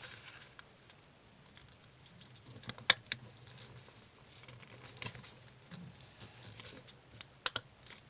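Square of origami paper being folded and creased by hand: soft rustling with a few sharp, crisp clicks, the loudest about three seconds in and others near five and seven and a half seconds.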